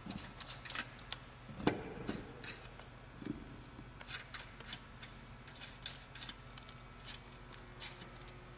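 Lug nuts being threaded onto the wheel studs by hand to mount a spare tire: scattered light metallic clicks and ticks, with a sharper knock a little under two seconds in and another just over three seconds in.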